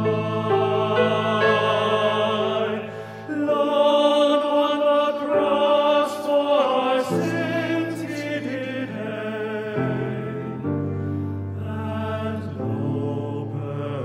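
Men's voices singing together in harmony, a slow piece of long held chords. There is a brief breath about three seconds in, and the chord drops lower about ten seconds in.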